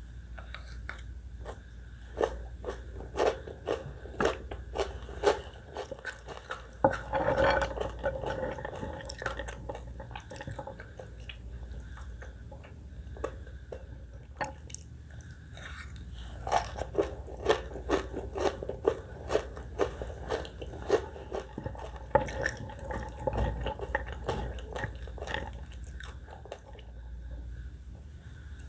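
Close-up chewing and crunching of a spicy Thai catfish salad with shredded sour green mango: runs of sharp, crisp crunches with wet chewing between, easing off in the middle and picking up again. A steady low hum sits underneath.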